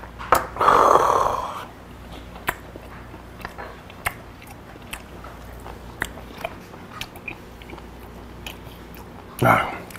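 A man chewing raw beef close to the microphone, with many small wet mouth clicks. There is a loud breathy burst about half a second in, lasting about a second, and a shorter one near the end.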